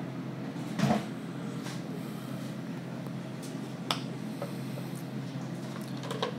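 Light knocks and clicks as a sushi chef handles utensils and food at the counter, the loudest about a second in, over a steady low hum.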